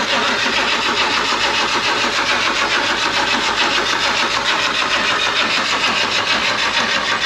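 Starter motor cranking the BMW 135i's turbocharged inline-six in a long, even run without the engine firing, spinning it over to prime oil through the turbo.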